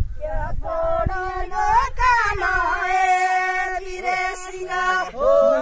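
A high voice singing a folk-style melody, holding one long note for about three seconds in the middle.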